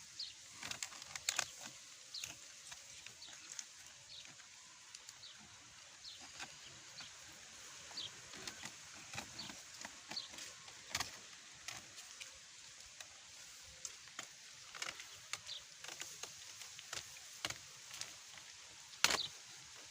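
A box being cut open with a blade to make a slit: irregular clicks, cracks and short squeaks of the material giving way, with a loud crack near the end.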